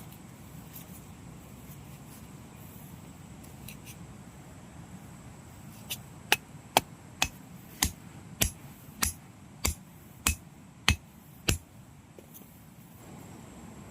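A run of about ten sharp knocks, evenly spaced at a little under two a second, starting about six seconds in and stopping near the end, over a steady low background.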